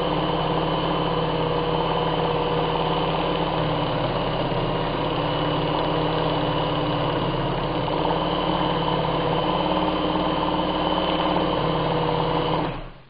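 Bernina 817 flatbed sewing machine running steadily while stitching through denim: an even motor hum with the needle mechanism's rapid stitching. It stops abruptly near the end.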